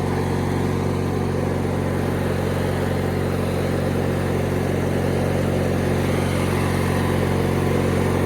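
Engine of a 1997 MTD Yard Machines riding lawn mower running steadily with a low, even drone as the mower is driven through snow.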